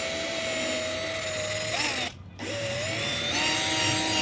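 Power drill spinning a foam polishing pad with rubbing compound on a plastic headlight lens: a steady motor whine that stops briefly about two seconds in, then spins back up and rises to a higher pitch.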